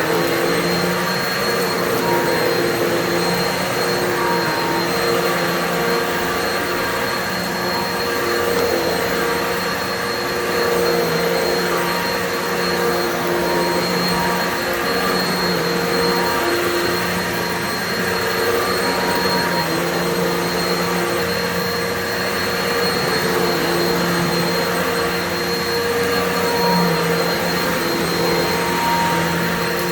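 Kenmore Progressive upright vacuum cleaner running continuously, a steady motor hum and rushing air whose level wavers slightly as it is worked.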